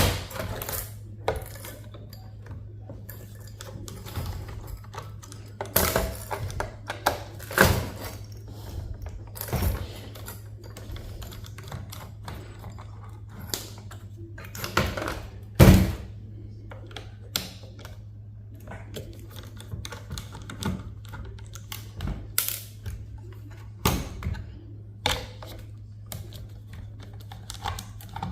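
Irregular clicks, taps and clunks of hand tools working on metal and plastic parts of a server power supply being taken apart, with one louder clunk about midway, over a steady low hum.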